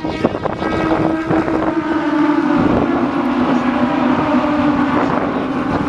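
A pack of Aussie Racing Cars running past at high revs, their engines making one steady, high drone that builds over the first couple of seconds and then sinks slightly in pitch as they go by.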